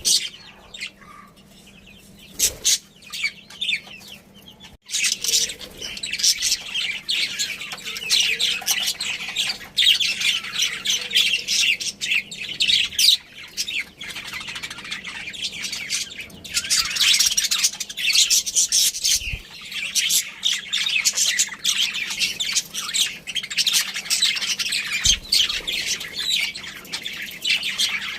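Budgerigars chirping and chattering, many short high calls overlapping. The first few seconds are quieter; from about five seconds in, the chirping becomes dense and continuous.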